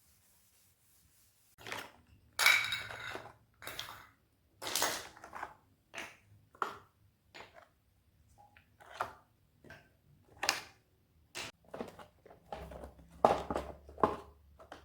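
Household objects being handled and set down on a hard surface: irregular knocks and clatters with some rustling between them.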